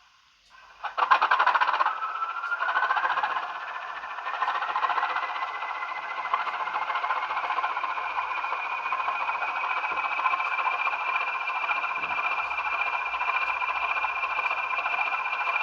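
Sound-fitted Bachmann OO-gauge Class 20 model locomotive playing its DCC diesel engine sound through the model's small onboard speaker. The sound starts loudly about a second in, then a whine rises in pitch over several seconds and settles into a steady whistle over the engine noise as the locomotive runs.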